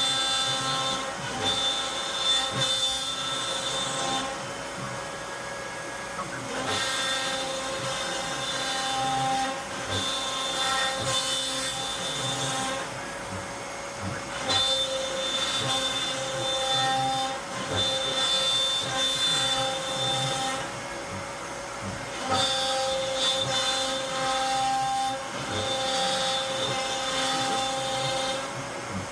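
CNC router spindle running and cutting wood, a steady high whine that drops away for a second or two every eight seconds or so and comes back.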